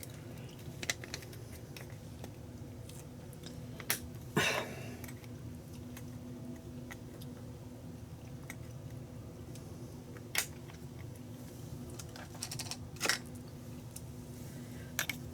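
Scattered light clicks and taps from handling a container of dried dill weed and a measuring teaspoon: a handful of short, sharp ticks spread through, over a quiet steady hum.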